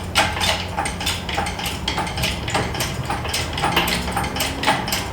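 A fast, fairly even run of light metallic clicks and rattles, about four a second, over a steady low hum.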